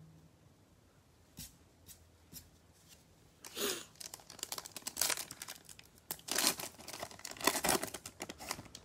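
A Bowman Chrome trading-card pack's plastic wrapper being torn open and crinkled by hand, starting about three and a half seconds in as a run of sharp crackles, after a few faint clicks.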